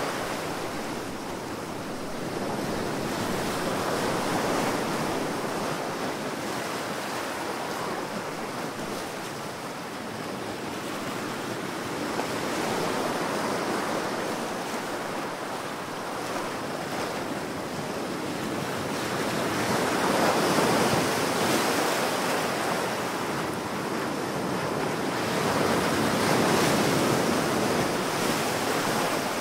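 Ocean surf: waves breaking continuously, swelling louder in slow surges several seconds apart.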